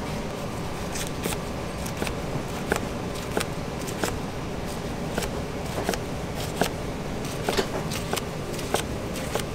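Chef's knife slicing an egg gimbap roll into rounds, each cut ending in a sharp tap of the blade on the cutting board, about one every half second to second, over a steady background hum.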